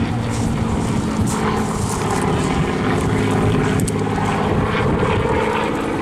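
Supermarine Spitfire Mk IIa's Rolls-Royce Merlin V12 engine running steadily in flight, the propeller aircraft departing at the end of its display.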